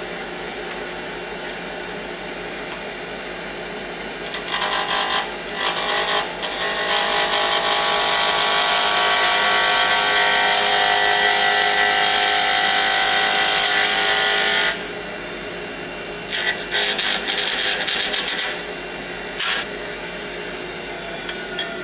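Grizzly G0800 wood lathe spinning a pen blank on a mandrel at 3500 rpm with a steady hum, then a turning tool cutting the spinning blank. The cut starts about four seconds in, runs steadily for about ten seconds, and is followed by several shorter, broken passes near the end.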